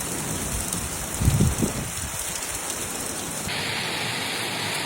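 Heavy rain pouring down, with a brief low thump about a second in. A little over three seconds in the sound cuts to a brighter, hissier downpour.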